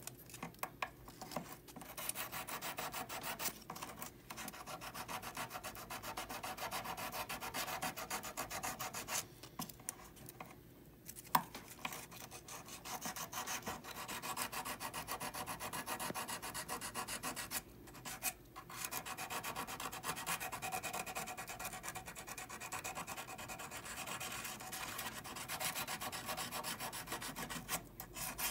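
Fast, even back-and-forth strokes of a small hand abrasive tool against a hollow 14kt gold bangle, smoothing the repaired area. The strokes stop briefly a few times, and there is a single sharp click about 11 seconds in.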